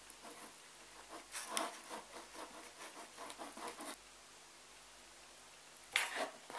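Small metal cutlery stirring icing sugar and orange juice in a ceramic mug, scraping and clinking against the sides in irregular strokes. After a pause of about two seconds the stirring starts again near the end, sharper and louder.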